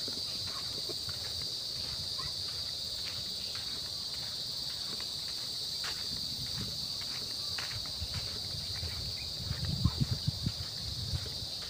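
Steady, high-pitched chorus of insects. Irregular low thumps come in near the end.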